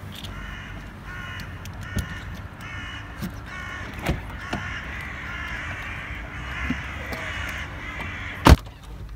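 Crows cawing over and over, a harsh call every half second or so. Near the end a car door slams shut with a single loud thud.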